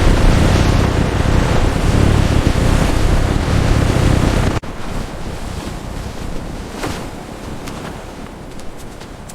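Loud steady rushing noise that cuts off abruptly about four and a half seconds in, leaving a quieter hiss with a few faint short whistle-like tones.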